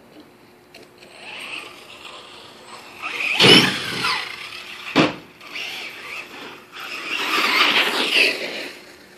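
RC truck's motor whining as it speeds up the ramp and launches into a backflip, then one sharp crack as it lands about five seconds in. The motor whines again near the end as it drives off.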